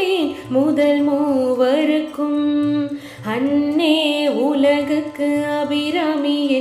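A woman singing a Tamil devotional verse, with long held, ornamented notes that waver and glide, over a soft low pulsing accompaniment.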